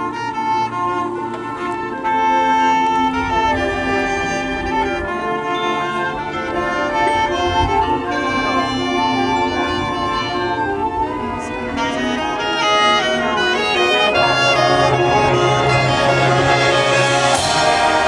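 Drum and bugle corps brass line playing with front-ensemble percussion, the full ensemble growing louder in the last few seconds into a loud brass passage. A cymbal-like crash sounds near the end.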